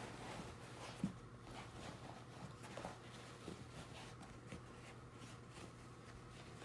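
Faint rustling and soft taps of a vacuum's cloth bag being handled, with a sharper knock about a second in, over a low steady hum.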